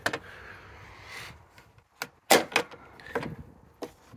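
Plastic latch clips on a wet-and-dry vacuum drum being snapped open and the plastic lid handled, a series of sharp clicks and knocks, the loudest about two and a half seconds in.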